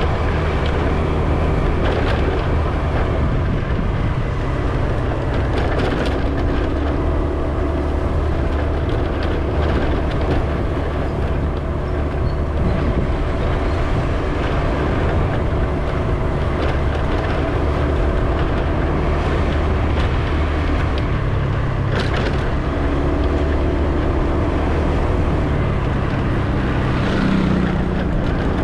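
Vehicle driving on a road: steady engine and tyre rumble, with a hum whose pitch shifts up and down as the speed changes, and a few light knocks.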